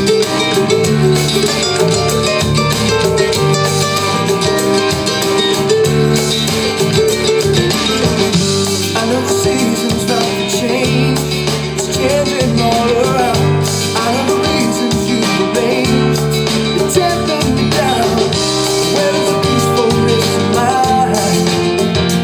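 Music: a song led by guitar with a full band behind it.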